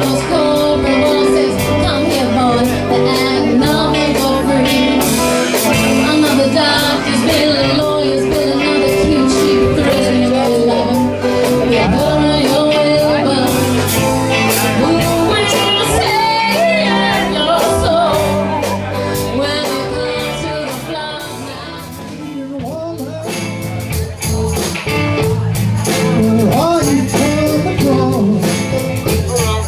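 Live rock band playing: electric guitars, bass guitar and a drum kit with busy cymbals. The music drops in level about three-quarters of the way through, then builds back up.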